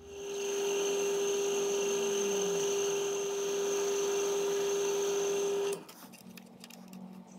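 Milling machine spindle turning a boring head, cutting a hole out to one inch: a steady whine that builds up at the start and cuts off suddenly a little under six seconds in. Faint scraping and clicks follow as chips are brushed away.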